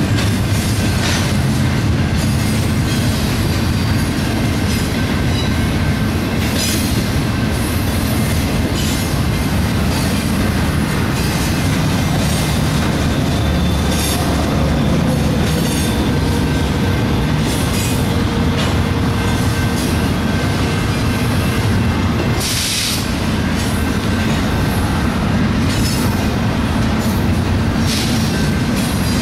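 BNSF double-stack intermodal freight cars rolling past: a steady rumble of steel wheels on rail with scattered clicks from the trucks. A faint, thin wheel squeal comes in through the middle, and a short hissing burst comes about two-thirds of the way through.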